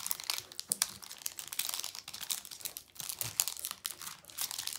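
Foil wrapper of a Pokémon Sword & Shield booster pack crinkling and tearing as it is pulled open by hand, a continuous run of sharp crackles.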